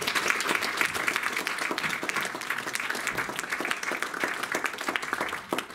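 Audience applauding, many hands clapping in a dense patter that starts all at once and fades out near the end.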